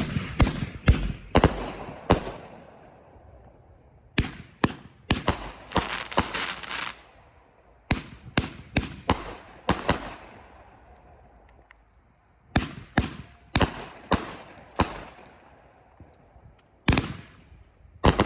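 Dominator "Pledge" firework cake firing in volleys: several sharp shots and bursting reports in quick succession, then a pause of a second or two before the next volley, about five volleys in all.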